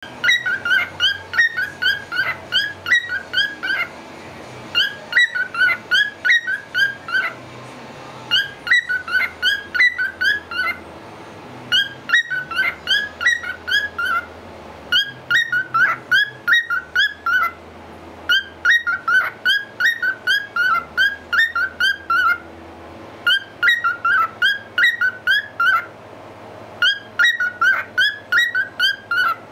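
Lutino cockatiel whistling its song: phrases of quick, bright whistled notes a few seconds long, repeated over and over with short pauses between.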